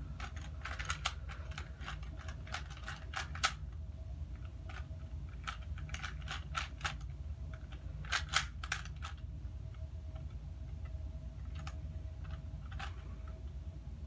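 A plastic 3x3 Rubik's cube being turned by hand, its layers clicking in quick runs of turns with short pauses between, the turns growing sparse near the end.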